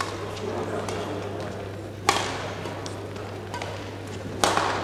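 Badminton rackets striking the shuttlecock in a doubles rally. There are two loud hits about two seconds and four and a half seconds in, each echoing in the large hall, with a softer hit at the start and faint taps between.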